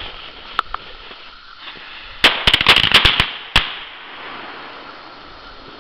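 A string of firecrackers going off: a rapid, uneven run of sharp bangs lasting about a second and a half, starting about two seconds in.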